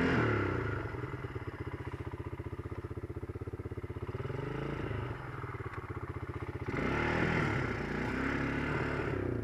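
Honda TRX quad's single-cylinder engine running under throttle on the move, revving up and easing off in waves. It is louder at the start and again from about two-thirds of the way in, with a dip a little after four seconds.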